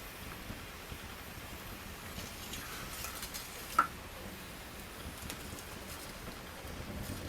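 Campfire crackling: scattered small ticks over a soft hiss, with one sharp pop nearly four seconds in.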